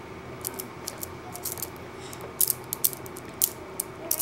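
Irregular sharp clicks and taps of small hard objects, a few louder ones clustered in the second half, over a faint steady hum.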